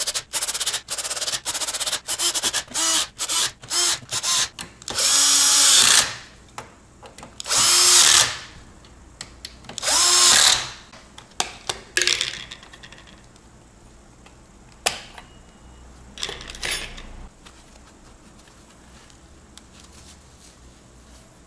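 Cordless drill-driver turning screws at the front fan mount of a PC case. It starts with many quick trigger pulses, then gives a few longer runs of about a second each with the motor winding up and down, and stops a little past halfway.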